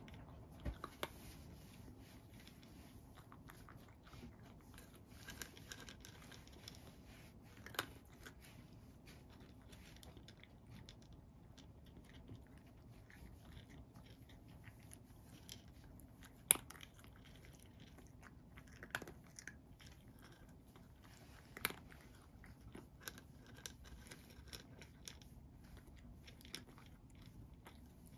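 A cat eating dry kibble: faint, irregular crunching as it chews the pellets, with a sharper crunch a little past halfway.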